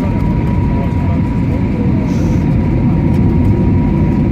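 Cabin noise aboard an Airbus A320neo in flight: a loud, steady rush of airflow and engine noise, heaviest in the low range, with a thin steady tone running through it.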